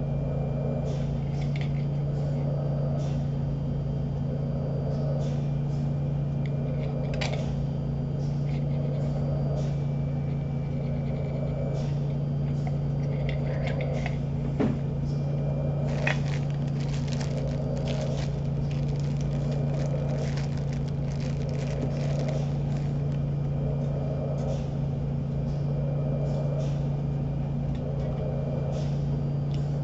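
Steady low machine hum with a soft whoosh about every two seconds: a home mechanical ventilator cycling breaths through a tracheostomy tube. Light clicks and rustling of handled items come in about halfway through.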